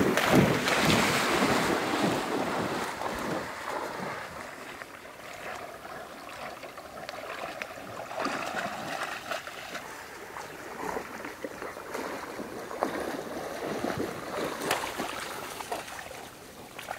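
A dog leaping into shallow river water with a loud splash, then wading and sloshing through it in smaller, uneven splashes.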